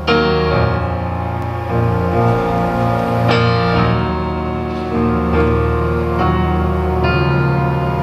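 Keyboard played live: struck chords that ring on, with a new chord about every one to two seconds and the strongest attacks at the very start and about three seconds in.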